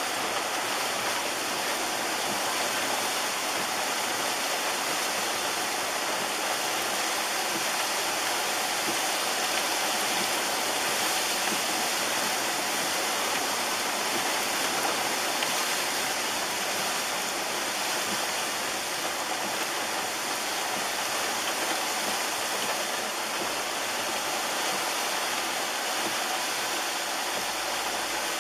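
Steady rushing water noise, an even hiss that holds unchanged throughout.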